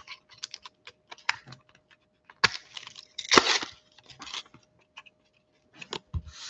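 A foil trading card pack from a mega box being torn open by hand: crinkling and ripping of the wrapper among small handling clicks, with the loudest tear about three and a half seconds in and a soft low thump near the end. A faint steady hum sits underneath.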